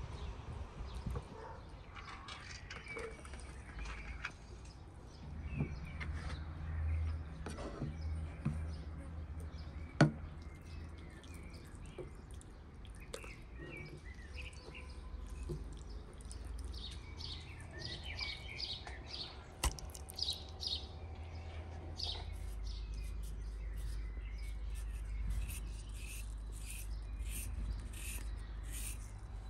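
Small birds chirping again and again, more often in the second half, over a low steady hum. Two sharp knocks stand out, about ten and twenty seconds in.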